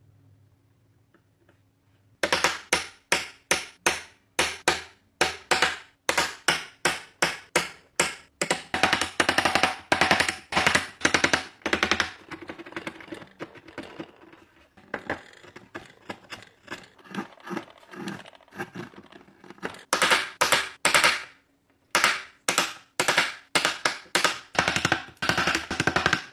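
Rapid series of sharp blows on wood, about three to four a second, starting about two seconds in and stopping briefly now and then: hand-tool work such as hammering or mallet strikes on the workpiece.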